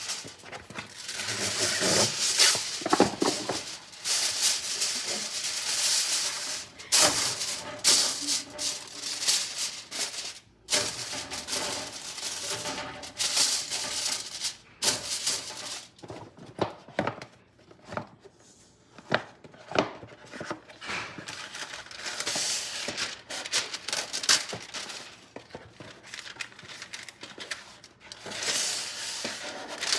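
Plastic cling wrap and baking paper rustling and crinkling as a baking tray is lined, with irregular short rustles and a few soft knocks. Music plays underneath.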